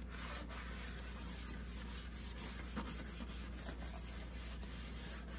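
A soapy kitchen sponge scrubbing dishes in a stainless steel sink: a steady, low rubbing with a few faint clicks of dishes.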